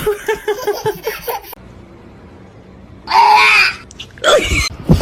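A person laughing in short rhythmic bursts, then two loud cries, the first about three seconds in and a shorter one near the end.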